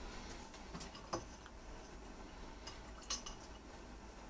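A few faint, sharp clicks and clinks, the loudest about three seconds in: ice cubes cracking and shifting in a glass jug of water.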